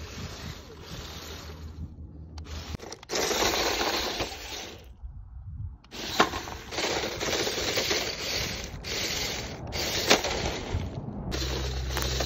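Gritty crunching and scraping on dry, stony dirt, coming in a string of short stretches about every half second to second, with a few sharp clicks.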